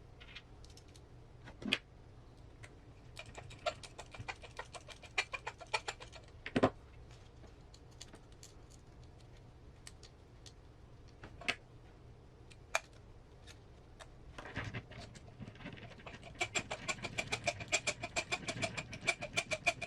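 Small parts and hand tools clicking and tapping while an RC crawler's motor is loosely mounted to its transmission. There are single sharp clicks here and there, and two runs of quick, lightly ringing clicks, one about four seconds in and a longer one near the end.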